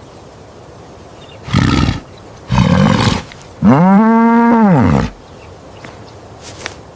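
Bull bellowing three times: two short calls, then a longer, pitched moo that rises and falls.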